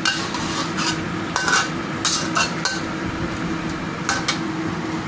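Metal spatula scraping and stirring chicken pieces in soy-sauce gravy in a wok: a series of short, irregular scrapes against the pan, with the sauce sizzling and a steady low hum underneath.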